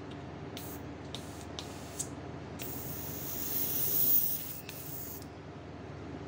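Airbrush spraying paint onto a fishing lure: a few short puffs of spray, then one longer pass of about two and a half seconds that grows louder before it stops.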